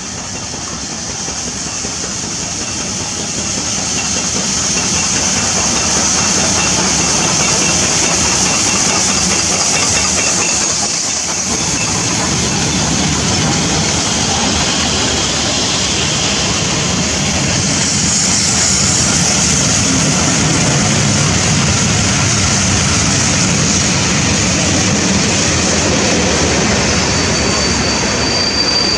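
Steam-hauled train drawing into a station behind two 4-6-0 locomotives, an LNER B1 and an LMS Black 5: the engines pass with a steady hiss of steam, then the coaches roll by over the rails. It grows louder over the first few seconds, and a high brake squeal sets in near the end as the train slows to stop.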